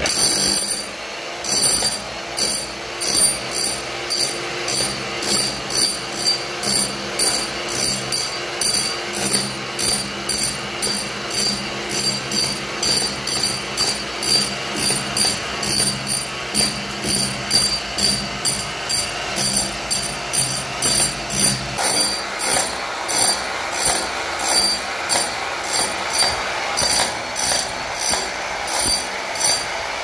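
Background music with a steady beat of about two beats a second, with sustained low tones under it that drop out about 22 seconds in.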